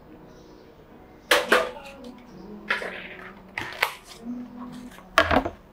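A series of sharp clicks and knocks as a plastic iced-drink cup and a milk can are handled on a counter: two quick knocks about a second and a half in, a few more in the middle, and a loud cluster near the end.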